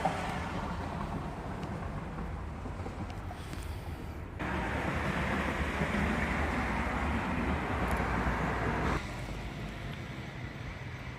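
Heavy rain and wind during a thunderstorm, with wind rumbling on the microphone. The noise jumps louder about four seconds in and drops back suddenly about five seconds later.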